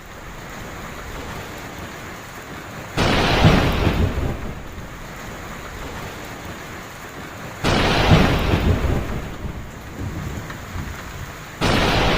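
Heavy rain falling steadily, with three thunderclaps: about three seconds in, just before eight seconds and near the end. Each starts suddenly and rumbles away over a few seconds.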